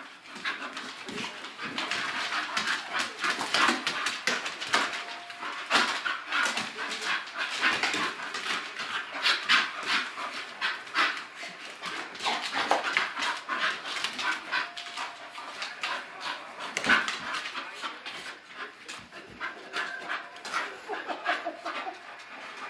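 Two English bull terriers wrestling in play: a dense, unbroken run of short, rough dog noises. It is good-natured play, not a real fight.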